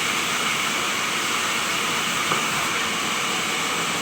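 Sawmill machinery running with a steady, hissing mechanical noise, and one short click about two seconds in.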